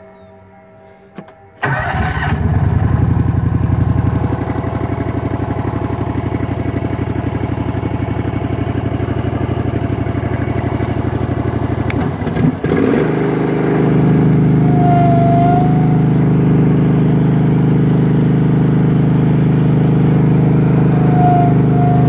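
A Wacker Neuson RD12 roller's 24-horsepower Honda V-twin starts about two seconds in, then idles with an uneven pulse. About twelve seconds in there is a brief knock, and the engine changes to a steadier, slightly louder run as the throttle switch is worked.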